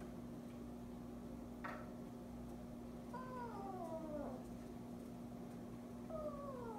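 Bengal kitten meowing with the blind cord's pull in its mouth: one long call that falls in pitch a few seconds in, and a second falling call starting near the end. A single short click comes about a second and a half in.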